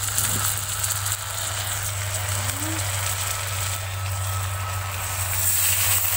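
Hot cooking oil sizzling in a steel wok over a steady low hum. The sizzle grows louder near the end as ground spice and onion pastes go into the oil.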